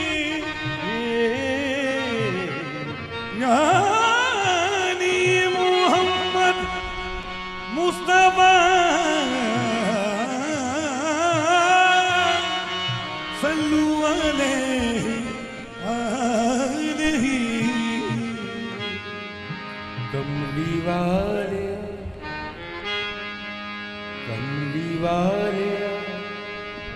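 Qawwali music: a singer's long, ornamented runs that glide up and down with heavy vibrato, over sustained harmonium notes.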